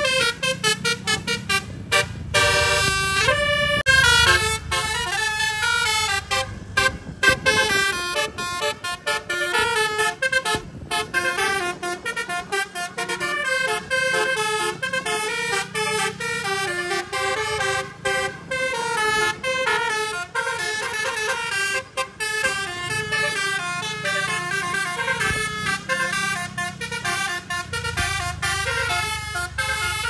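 Tour bus telolet horn playing a long, fast run of melodic tunes, note after note in quick steps up and down, with the bus engine rumbling underneath at times.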